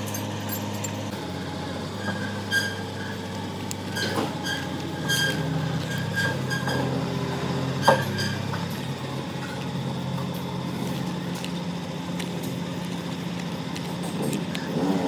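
A machine running steadily, with a series of sharp metallic clinks and taps in the first half. The loudest is a single strike about eight seconds in.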